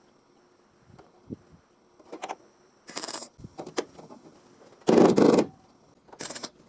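MIG welder laying short plug-weld bursts, about five crackling bursts with pauses between them, the loudest and longest about five seconds in.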